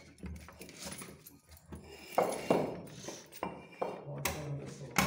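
Metal ring handles and a bunch of keys clinking against an old wooden door as someone fumbles at its lock, with sharp metallic clanks about two seconds in and again near the end.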